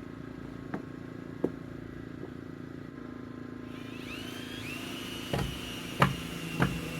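A steady low mechanical hum runs throughout, with two light clicks in the first half. From a little past halfway a high, steady whine comes in, followed by a few sharp knocks about half a second apart.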